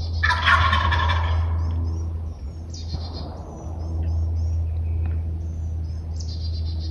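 A wild turkey gobbler gobbles once, a loud rattling call lasting about a second, near the start. Songbirds chirp around it over a steady low rumble.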